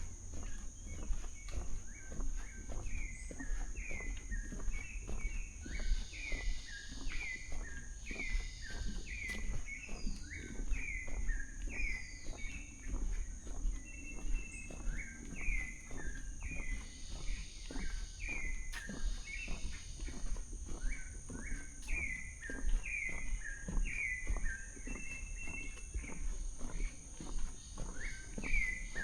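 Rainforest ambience. A bird repeats short falling whistled notes, about two a second with a few brief pauses, over a steady high insect drone, with soft footsteps on the forest floor.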